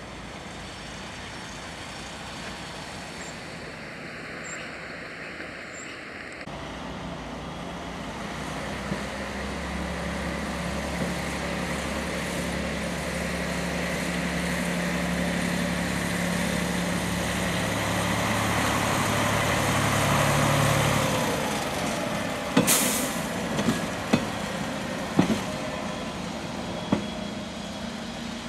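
Diesel engine of an EM50 track recording car running as it moves off and passes, growing louder over about fifteen seconds. Near the end there is a brief hiss, then a few sharp clicks a second or so apart from its wheels on the rails.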